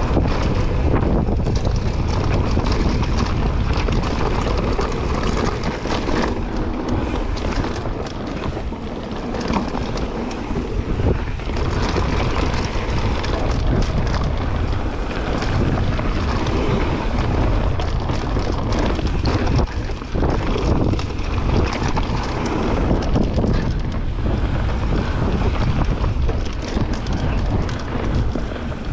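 Mountain bike running fast down a dirt trail, with wind rushing over the camera's microphone, tyre noise on the dirt and the bike clattering over the bumps.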